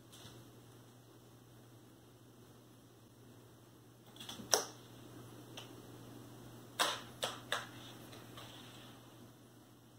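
A kitten playing on a hardwood floor: a few sharp clicks and taps, a small cluster about halfway through and three quick ones about two-thirds through, over a low steady room hum.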